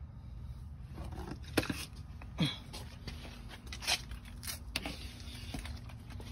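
Scuffs and knocks of someone getting up from under a pickup and walking on concrete while handling the phone, over a steady low rumble; one short falling squeak-like sound about two and a half seconds in.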